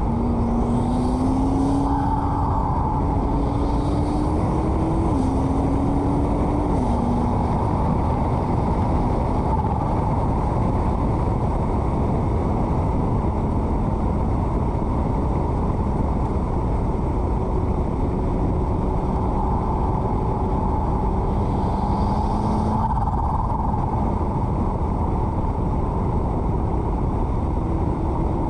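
McLaren MP4-12C's 3.8-litre twin-turbo V8 pulling at moderate road speed. Its note climbs and drops sharply with quick upshifts about five and seven seconds in, runs steadier through the middle and rises again near the end as the car slows for a bend. Heavy wind and tyre noise rushes over the body-mounted microphone.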